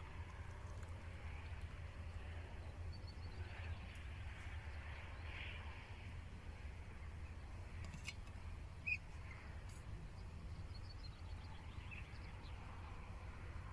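Birds chirping faintly here and there over a steady low rumble, with one sharp click about nine seconds in.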